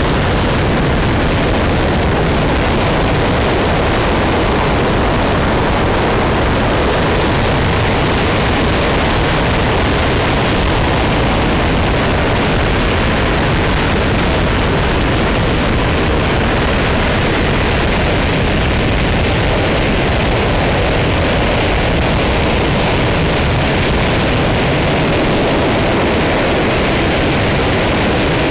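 RS-25 liquid-hydrogen/liquid-oxygen rocket engine firing at steady thrust in a static test, a loud, continuous rushing noise from deep rumble to hiss that holds level without a break.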